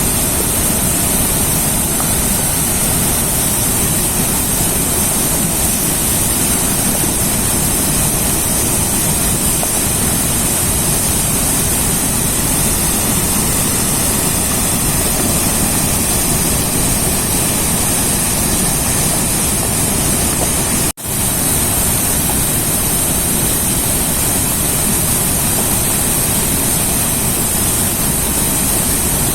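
A river's rushing water making a steady, loud rumble, cutting out for a split second about two-thirds of the way through.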